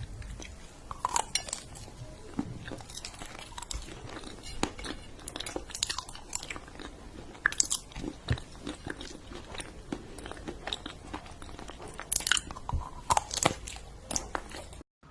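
Crunchy food being bitten and chewed, with irregular crackling crunches; a burst of louder crunches comes about twelve seconds in.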